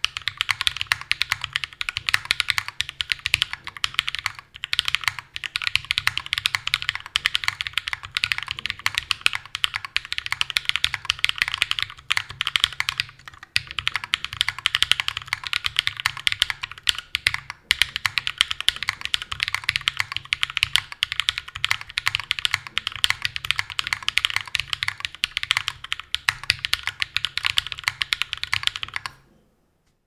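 Continuous fast typing on a Prime Keyboards Meridian custom mechanical keyboard with lubed and filmed Glorious Panda tactile switches and Domikey Classic Dolch keycaps: a dense stream of keystroke clacks with a few brief pauses. The typing stops shortly before the end.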